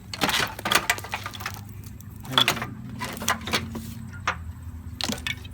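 A loose engine wiring harness being handled: its plastic connectors and clips clicking and rattling against each other in irregular bunches.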